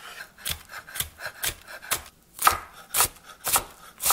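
Chef's knife dicing a yellow onion on a wooden cutting board: regular knife strikes through the onion onto the board, about two a second.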